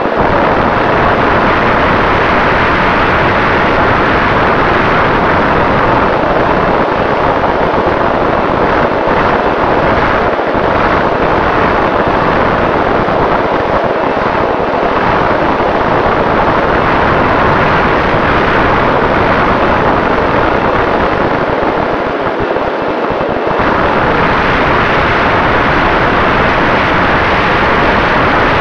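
Steady rush of wind over an AR900 RC flying wing in flight, mixed with the hum of its electric motor and propeller at half throttle, with a faint steady whine under it. The sound eases briefly about three-quarters of the way through.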